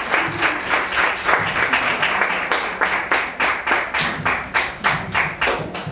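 An audience applauding, with quick claps coming in a fairly even run.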